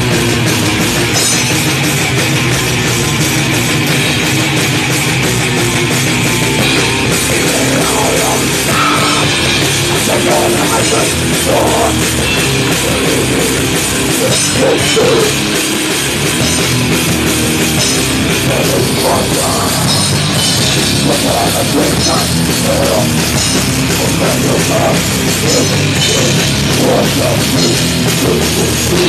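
A death metal band playing live in a rehearsal room: distorted electric guitars over a fast drum kit, loud and continuous.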